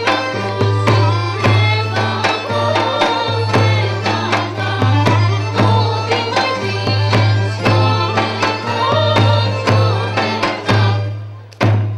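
Albanian folk dance music: a melody instrument playing a lively tune over a steady drum beat. Near the end the melody breaks off and the drum beats carry on alone.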